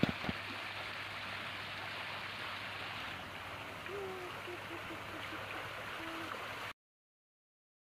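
Water splashing and trickling steadily down a tiered stone garden fountain, with a few short knocks right at the start. The sound cuts off abruptly about seven seconds in.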